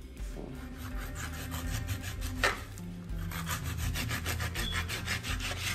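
Serrated, bread-knife-style kitchen knife sawing back and forth through a raw turkey wing, a quick, even rhythm of rasping strokes with one sharper stroke about halfway through.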